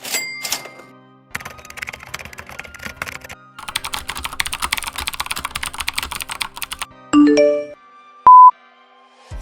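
A run of stock sound effects over quiet background music: a bright chime, then computer-keyboard typing that grows into fast, dense clatter, then three short beeps stepping up in pitch, and finally a very loud short beep like a censor bleep.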